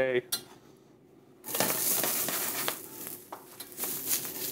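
Diced zucchini hitting hot oil in a stainless steel sauté pan: a loud sizzle starts suddenly about a second and a half in and eases off, with light clinks and knocks as the pan is tossed.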